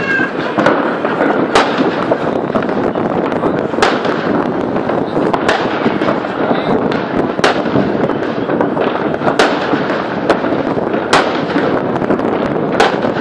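New Year's Eve fireworks and firecrackers going off across a city, with a sharp bang every second or two and smaller cracks in between, over a steady background hiss.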